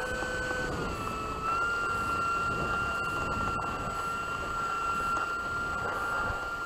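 Small electric motor whining steadily at a high pitch; the pitch dips briefly about a second in and then comes back up, over a rough background rush.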